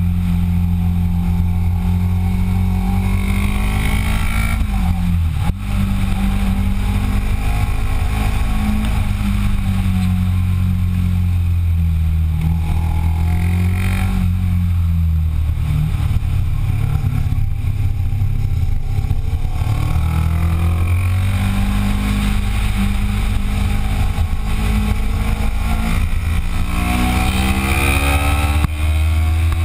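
Kawasaki ER6n's parallel-twin engine heard from onboard on a race track, rising and falling with the throttle and gear changes. The note drops away around the middle and climbs in a series of rising sweeps near the end as the bike accelerates.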